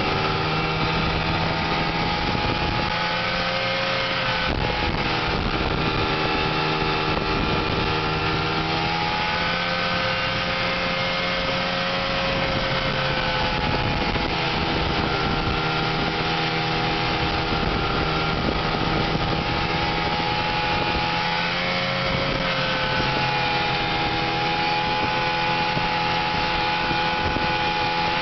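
Snowmobile's two-stroke engine running at trail speed, heard from the rider's seat. Its pitch eases off and climbs again several times as the throttle changes.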